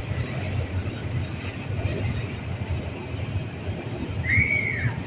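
Train running with a steady low rumble. Near the end comes a short, high squeal that rises and then falls.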